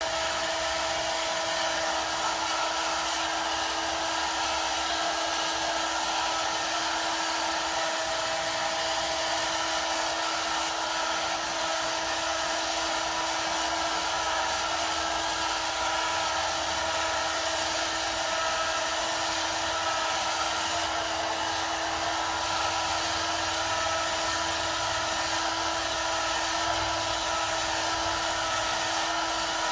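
Electric heat gun blowing steadily, its fan motor hissing with a constant whine, as it softens the plastic flange of a flush-mount rod holder.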